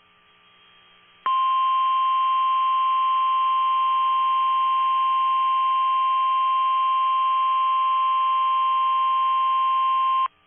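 NOAA Weather Radio warning alarm tone: one steady, unwavering 1050 Hz tone, loud and lasting about nine seconds. It starts abruptly after about a second of near-silence and signals that a warning message follows.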